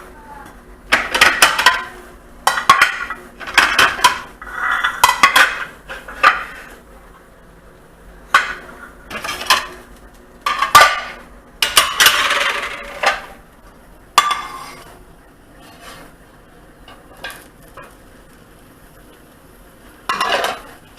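Kitchen utensils knocking and scraping against a frying pan and plate, a busy run of clatters that thins out to a few single knocks after about fourteen seconds.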